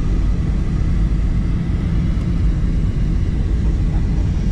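Steady rumble of a jet airliner's engines and rushing air, heard from inside the passenger cabin at a window seat during flight.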